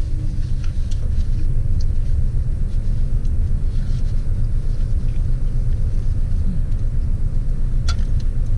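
Steady low rumble of a parked car's engine idling, heard inside the cabin. A short click sounds near the end.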